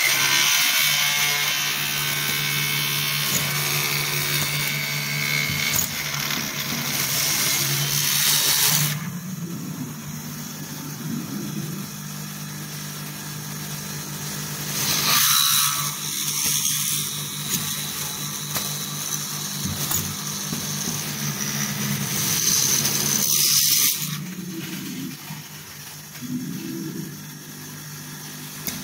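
Automatic screw-fastening machine at work: its electric screwdriver spindles and feed run with a steady hum, broken by loud bursts of hissing noise, a long one over the first nine seconds and short ones about fifteen and twenty-three seconds in.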